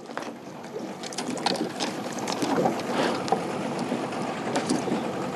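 Water splashing and sloshing around a kayak at sea, with many small knocks and clicks scattered through it. It grows louder over the first couple of seconds and then holds steady.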